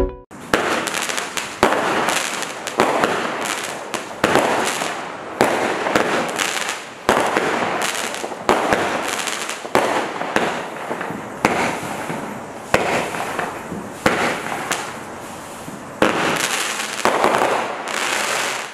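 Gala Blaze 16-shot firework cake firing its shots in steady succession, roughly one every 1 to 1.5 seconds, each a sharp bang trailing off into a hiss.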